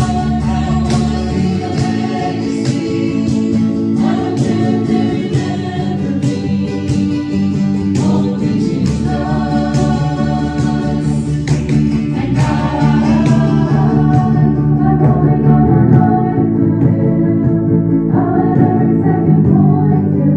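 Live praise band playing a contemporary Christian song: voices singing over strummed guitars and keyboard. About two-thirds through, the bright top end drops away and the music grows louder.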